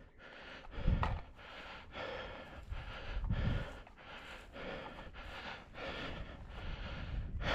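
A man breathing heavily into the microphone, with loud breaths coming about once a second.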